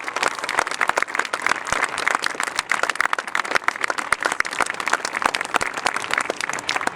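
Crowd applauding: many hands clapping in a dense, steady patter of sharp claps.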